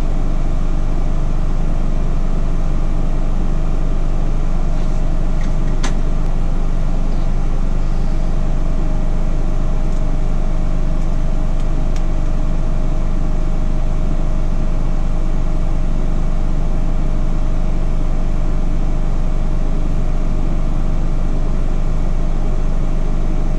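Steady low hum of a BGA rework station's cooling fan running after the reflow heat is stopped. A faint steady whine joins about eight seconds in, and there is one light click about six seconds in.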